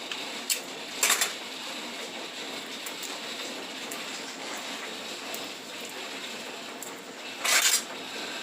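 Plastic packaging crinkling and tearing as it is peeled off a block of frozen ground beef, in two short bursts, about a second in and near the end, with a few light clicks between. A steady hiss runs underneath.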